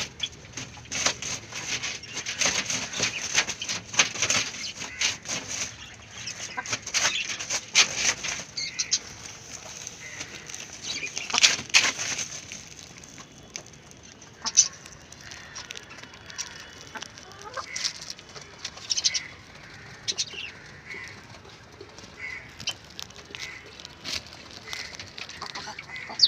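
Country chickens (nattu koli) clucking. A dense run of rustling and clicks fills roughly the first half, then gives way to scattered short calls.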